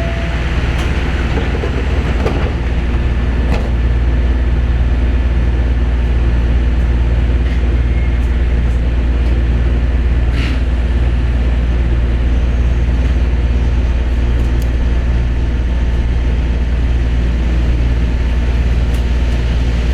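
Osaka Monorail train running, heard from inside the car: a steady low hum of the motors and rubber tyres on the guideway, getting a little louder about three seconds in, with a few faint clicks.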